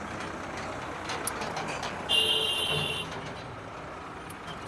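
Steady outdoor background noise, with a short high-pitched beep-like tone about two seconds in that lasts under a second.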